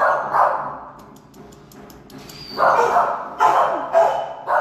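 Shelter dogs barking in a kennel with hard tiled walls, each bark echoing. Two barks come at the start, then a quicker run of about four from a little past halfway.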